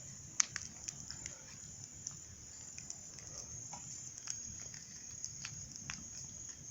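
A wood bonfire crackling, with irregular sharp pops. Under it runs a steady high chorus of night insects such as crickets.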